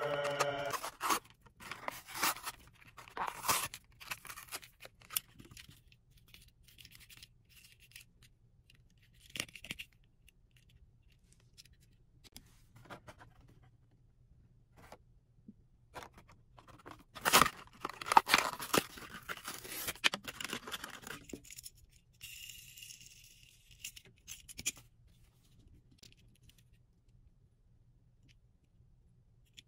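Toy-car packaging being torn and handled: cardboard tearing and plastic crinkling and scraping in irregular bursts, with the loudest tearing about two-thirds of the way through.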